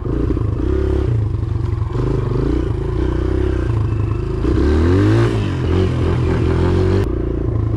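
Kawasaki KLX dirt bike's single-cylinder four-stroke engine running as the bike is ridden along a muddy trail, revving up about four and a half seconds in and then easing back.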